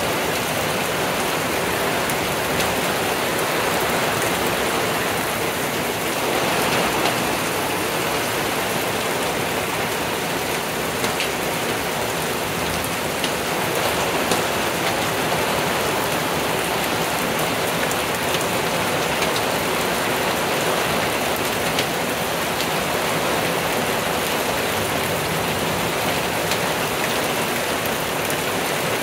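Steady rain falling on a wooden deck and the leaves of the surrounding woods during a thunderstorm, with a few sharper drops ticking nearby.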